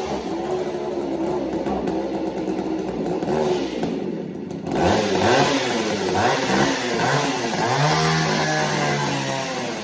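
A two-stroke chainsaw engine running and being revved over and over, its pitch rising and falling with the throttle. About four seconds in it drops low for a moment, then revs up again several times.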